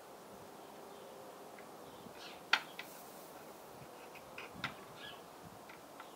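A few light metallic taps and clicks, the sharpest about two and a half seconds in, from a soldering iron tip working solder onto a steel crankshaft thrust half-washer held in pliers, over a faint steady hum. The washer is being tinned on its back to build up its thickness and take up the crankshaft's axial end play.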